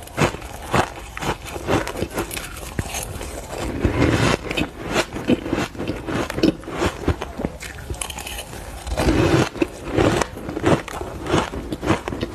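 Close-miked biting and chewing of frozen ice: a steady run of sharp, crisp crunches and crackles, several a second.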